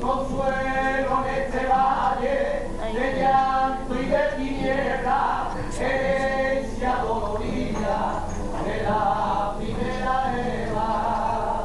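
A voice singing slow, long held notes that waver in pitch, in several drawn-out phrases.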